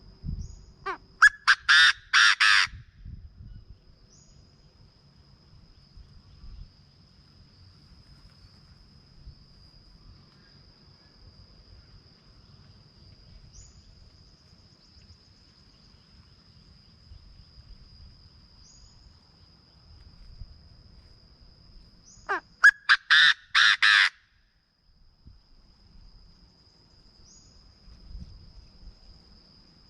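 Chinese francolin calling: two bouts of about six loud notes in quick succession, one near the start and one about 22 seconds in. A steady high insect whine runs underneath throughout.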